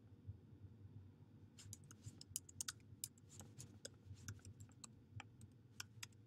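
Faint computer keyboard typing: a quick, irregular run of key clicks starting about a second and a half in, as a few words are typed.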